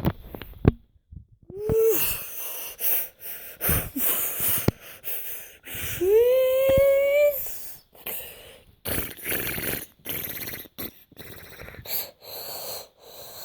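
A child's mouth sound effects for a toy battle: a string of short breathy blasts and hisses, with a long rising, then held, vocal whine about six seconds in.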